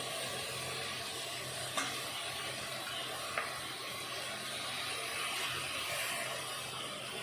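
Onion, tomato and green chillies frying in oil in a pan, sizzling steadily, with two short knocks of a utensil against the pan about two and three and a half seconds in.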